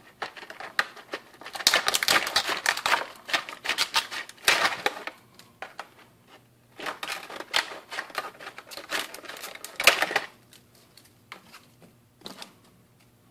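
Scissors cutting through a stiff plastic blister pack: rapid snipping and crackling of the plastic in two long runs with a short pause between, then a few light clicks near the end.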